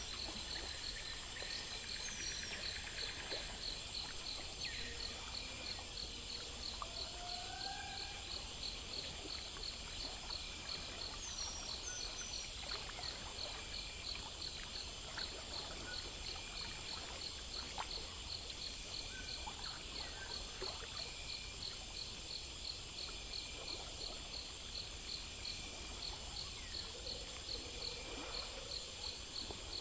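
Crickets chirping in a steady rhythm, about three pulses a second, with other insects trilling higher and a few short bird chirps over a low, even hiss.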